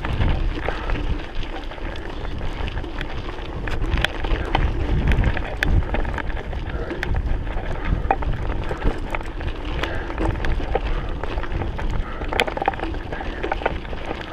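Mountain bike rolling fast over a rocky dirt trail: tyres crunching on gravel, with scattered clicks and rattles as it bounces over stones, under steady wind buffeting the microphone.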